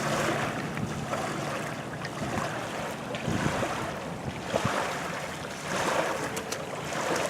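Wind buffeting the microphone over water lapping and splashing, with a few light knocks.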